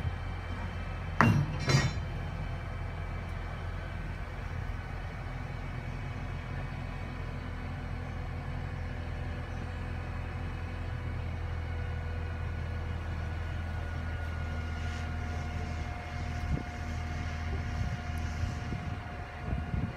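Mobile crane's diesel engine running steadily with a low drone, with two sharp knocks between one and two seconds in.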